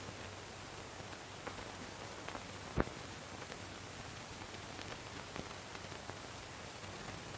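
Steady hiss from an old film soundtrack, with scattered crackles and pops and one louder pop about three seconds in.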